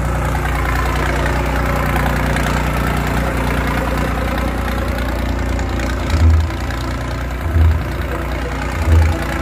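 Tractor diesel engine running steadily at low revs as the tractor circles at a slow, steady speed. In the later part, deep thumps come about every second and a half.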